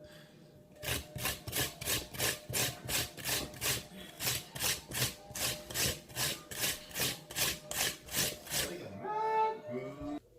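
Raw peeled potatoes being grated on a hand grater: a steady rasping stroke about three times a second, stopping about nine seconds in. A short voice sound follows near the end.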